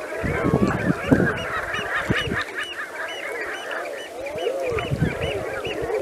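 A flock of geese honking, with many short calls overlapping.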